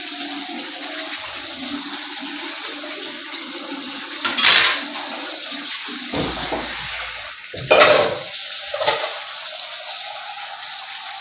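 Hilsa fish curry simmering in a wok on a gas burner: a steady bubbling hiss. It is broken by a few louder bursts of noise in the middle.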